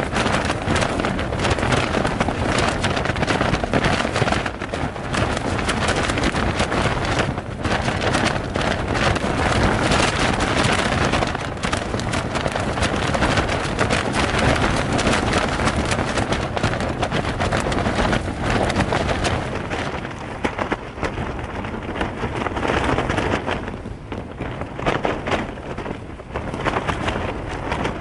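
Strong gusting wind battering a backpacking tent, its fabric shaking and flapping, heard from inside with heavy wind rumble on the microphone. It stays loud throughout, easing slightly in the last several seconds.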